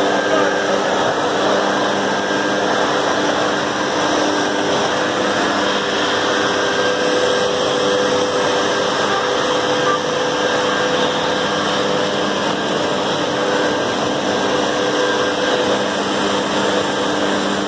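Husqvarna backpack leaf blower's engine running steadily at an even speed, with the rush of air from its tube as it blows grit and dust out of a road pothole to clean it before patching.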